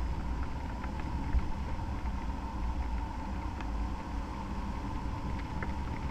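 Airflow buffeting the microphone of a camera mounted on a hang glider in flight: a steady rushing, rumbling wind noise, with a faint steady high tone underneath.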